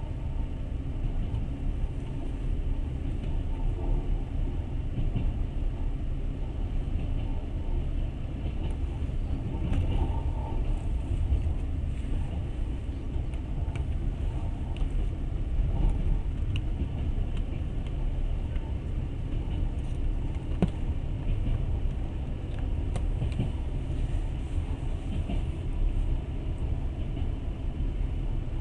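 Steady low rumble of a moving passenger train heard from inside the carriage, with a few faint clicks.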